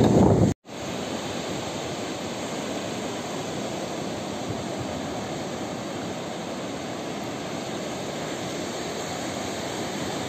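Steady rushing noise of surf breaking on a beach, after a brief cut to silence about half a second in.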